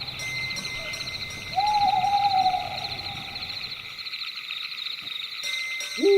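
An owl gives one long, held hoot about one and a half seconds in, over the steady, fast-pulsing chirring of night insects. Right at the end a louder call slides down in pitch.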